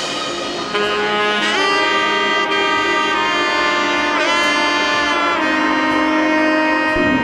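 Instrumental music: long held, horn-like melody notes over sustained chords, with a couple of notes sliding in pitch.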